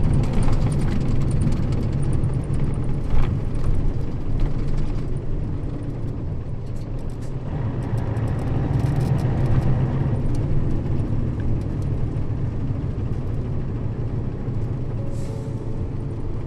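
Nissan Diesel KL-RA552RBN bus under way: steady diesel engine drone and road noise, with light rattles, swelling a little around the middle. A short hiss comes near the end.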